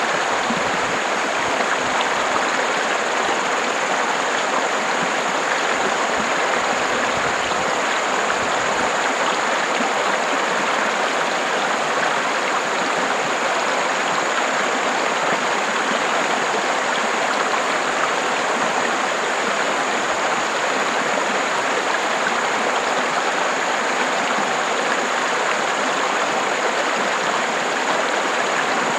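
River water running, a steady rushing flow with no breaks, with a faint steady high-pitched tone running underneath.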